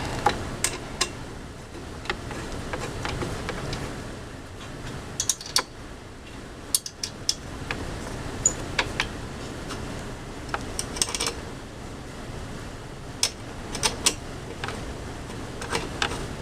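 Irregular small metallic clicks and clinks, some in quick clusters, as steel washers and nuts are handled and fitted onto the fender-mounting bolts.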